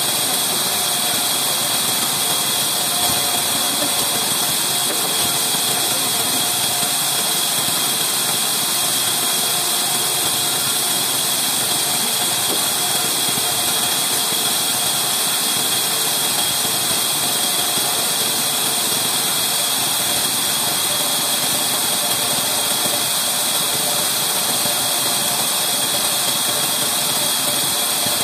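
Large log band saw running steadily: a continuous mechanical whirr with a high whine, holding an even level throughout.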